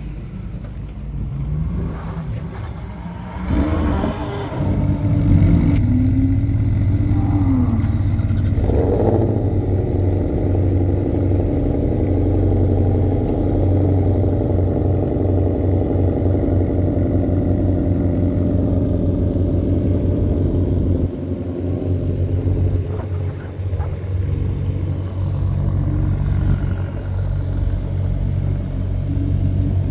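Cold start of V8 engines from a Ford Mustang Shelby GT500 and a McLaren 720S. One engine catches a few seconds in and its revs flare up and down. It then settles into a loud, steady high idle that runs on with the other V8, dipping briefly about twenty seconds in.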